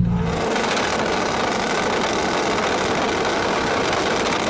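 Turbocharged Suzuki Hayabusa drag motorcycle engines running steadily at idle on the starting line, loud and rough.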